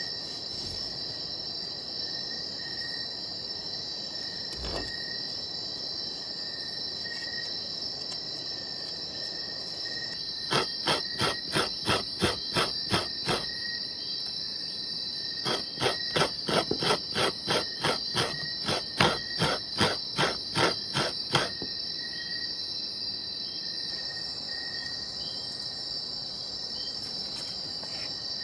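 Steady high-pitched chorus of crickets and other insects. Partway through come two runs of sharp, evenly spaced knocks, about two to three a second, louder than the chorus.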